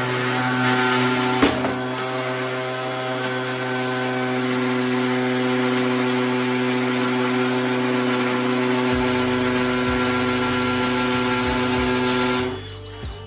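DeWalt DCD778 brushless 18V hammer drill in first (low-speed) gear, boring a masonry bit into a concrete block: a steady motor whine over gritty drilling noise, with a single knock about a second and a half in. It stops suddenly near the end.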